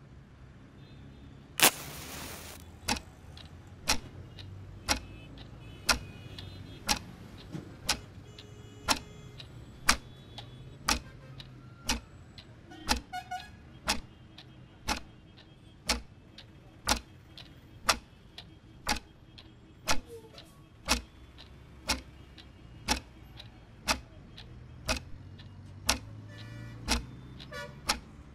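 A clock ticking steadily, about once a second, over a faint low hum. About two seconds in there is a loud, short burst of noise.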